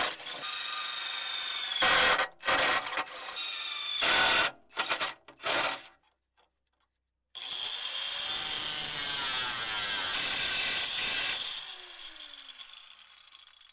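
Cordless drill run in several short stop-start bursts, drilling into steel flat bar. After a short break, an angle grinder with a cutting wheel runs steadily for about four seconds cutting the steel, then spins down with a falling tone near the end.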